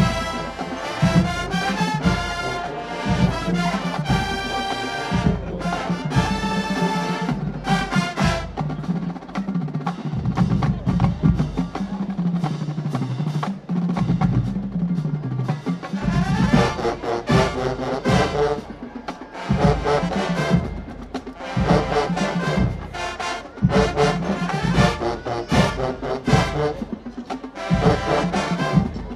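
Marching band playing, with brass over a driving drum line.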